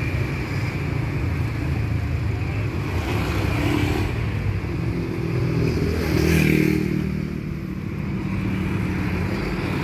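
Street traffic: a steady engine rumble with vehicles passing close, one about four seconds in and a louder one about six seconds in, motorcycles among them.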